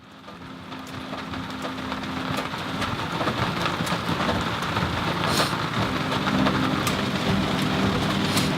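Steady rain falling, fading in over the first few seconds, with scattered sharp drop hits and a low steady hum underneath.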